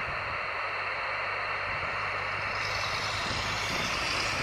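Steady hiss of an empty band from a Yaesu portable transceiver's speaker, receiving single-sideband on the 6-metre band with no station coming through, over a low hum.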